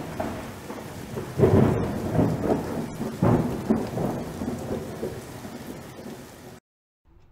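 Thunderstorm: steady rain with two heavy rolls of thunder, about a second and a half in and again about three seconds in, then cut off suddenly near the end.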